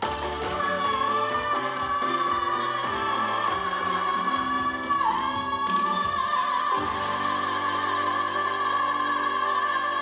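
Female trot singer holding one long high note with vibrato over live band accompaniment, dipping briefly to a lower note about five seconds in before returning to it.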